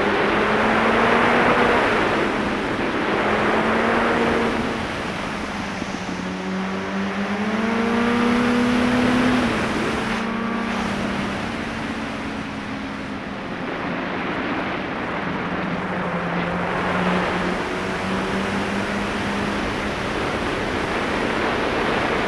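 Sport motorcycle engine heard from the rider's seat on the move. Its pitch rises and falls with the throttle through the ride, under heavy rushing wind noise.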